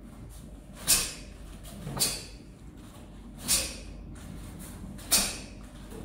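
Taekwon-Do uniform (dobok) fabric snapping with each fast technique of a pattern: four sharp cracks, a second or so apart, each dying away quickly.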